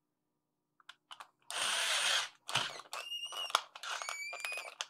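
Small electric screwdriver driving screws through a fan cover into a 3D-printed plastic case. There is a harsh grinding burst about a second and a half in, then the motor whines in two short runs as the screws go in.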